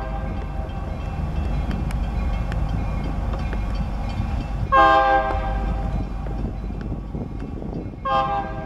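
Air horn of an approaching EMD SD40-2 diesel freight locomotive, several notes sounding together. It gives a blast of about a second roughly five seconds in and starts another near the end, over the locomotive's steady low rumble.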